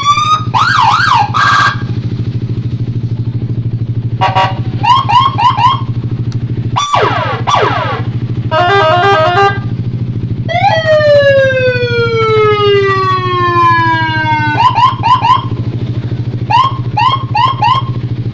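Custom electronic siren horn on a Yamaha NMAX scooter cycling through its tones. It plays groups of short rising whoops, a quick downward sweep, a fast two-tone warble and one long falling wail, over a steady low hum.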